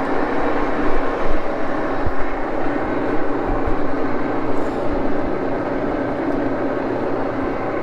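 Axelson engine lathe running with a high-speed steel parting blade cutting off a knurled nut under power feed: a steady, dense mechanical drone, with a few soft low knocks in the first half.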